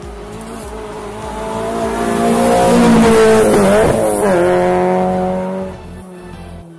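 Hill-climb competition car passing at full throttle: the engine note grows louder as it comes up, is loudest about three seconds in, drops in pitch around four seconds in as it goes past, then fades as it climbs away.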